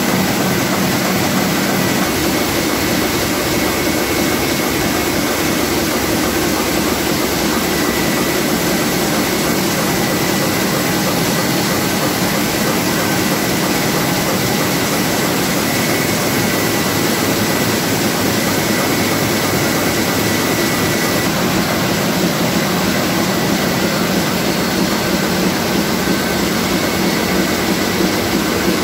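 Komori Lithrone L432 four-colour sheetfed offset press running: a steady, loud mechanical din with a faint high whine.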